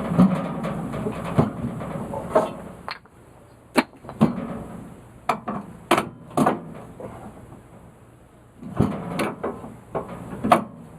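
Irregular knocks and clunks from wood and sawmill gear being handled, about a dozen sharp hits spread unevenly, with a quieter stretch in the middle. No saw is cutting.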